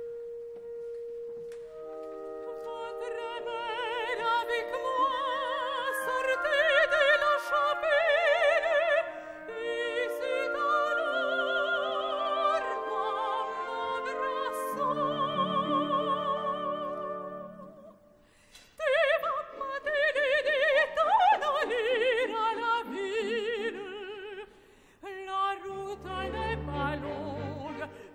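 Operatic soprano singing a lyrical melody with wide vibrato over orchestral accompaniment. The orchestra holds a note before the voice enters about two seconds in, and the music breaks off briefly about two-thirds of the way through before the singing resumes.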